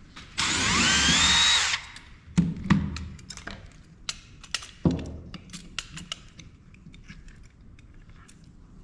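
A handheld power driver runs for about a second and a half, its pitch rising as it spins. Then come scattered knocks and clicks of parts being handled, three louder ones in the first few seconds after it stops.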